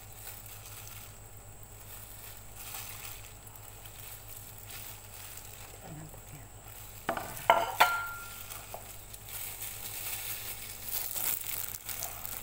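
Disposable plastic gloves crinkling and rustling as hands pull boiled chicken meat off the bone. A few sharp clacks about seven to eight seconds in, one with a brief ring, are the loudest sounds.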